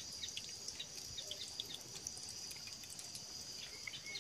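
Insects buzzing steadily in a high, even drone, with scattered short bird chirps, a couple of them near the end.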